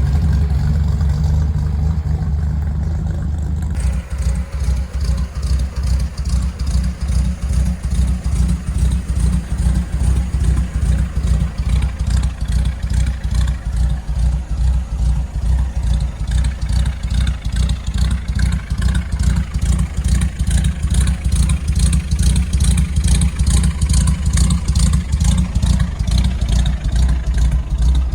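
Straight-six engine running through headers and dual glass-pack exhausts, a steady low idle. About four seconds in the sound changes to an even, rhythmic throb that holds steady.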